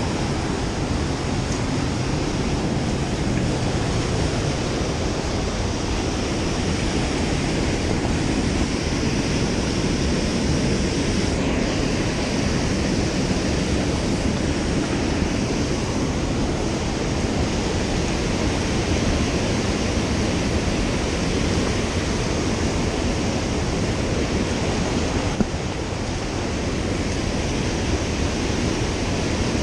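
Mountain river water running with a steady, even noise.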